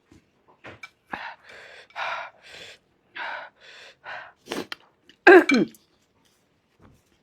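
A person panting and sucking air sharply in and out of the mouth to cool the burn of very spicy food, a string of short breathy hisses, then a loud voiced gasp falling in pitch about five seconds in.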